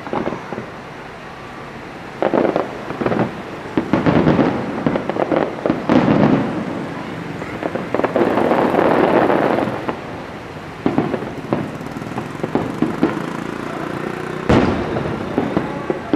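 Aerial fireworks shells bursting overhead: a run of booms with crackling bursts, densest in the middle, and one sharp bang near the end.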